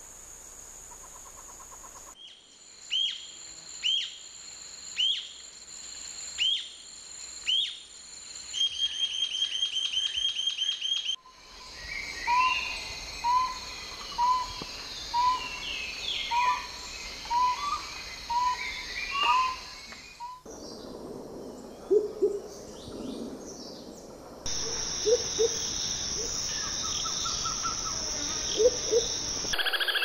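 Recorded calls of several forest bird species edited one after another. First comes a high down-slurred note repeated about once a second, then a short fast trill. Next is a run of about nine even hooting notes roughly a second apart, and last a few low notes over a steady high hiss.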